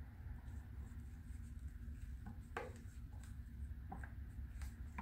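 Wooden stir stick scraping the last of the epoxy resin out of a plastic cup: faint, scattered scrapes and light taps over a low steady hum.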